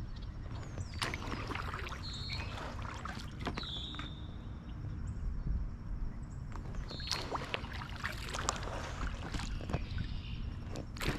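A kayak being paddled: irregular splashing paddle strokes and sharp knocks on the hull over a steady low rumble.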